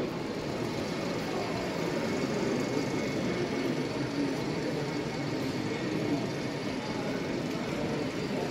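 Steady hubbub of a busy exhibition hall around an HO-scale model railway layout, with faint distant voices mixed in.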